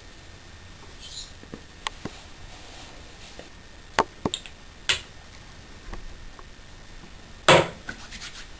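Handling sounds from a hand-held shaving razor: a few light clicks and taps spread out, then one louder short rubbing sound near the end as the hands come together.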